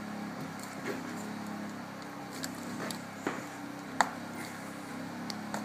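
Scattered small clicks and handling noises from gloved hands working an air filter loose on a carburetor, with one sharper click about four seconds in, over a steady low hum.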